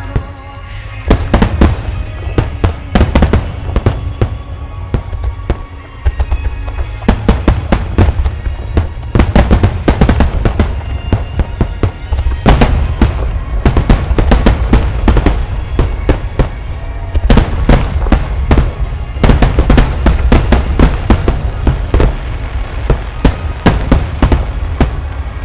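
A large Phoenix starmine fireworks display: volley after volley of aerial shells bursting in rapid succession, sharp cracks over a deep rolling rumble, in four or five dense clusters, with music playing underneath.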